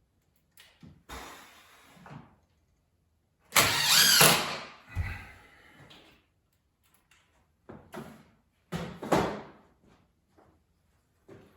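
Power driver running drywall screws into metal blind brackets, in several short bursts with pauses between them; the longest and loudest run, about a second, comes about four seconds in.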